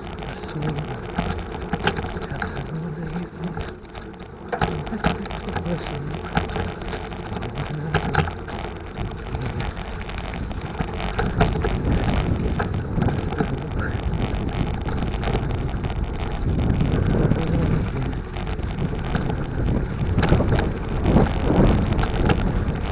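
Bicycle rolling over a rough unpaved dirt road: steady rumbling with frequent small knocks and rattles from the bumps, plus wind on the microphone.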